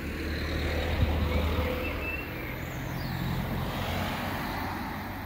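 A motor vehicle's engine running with a low steady hum and road noise, loudest about a second in and slowly fading.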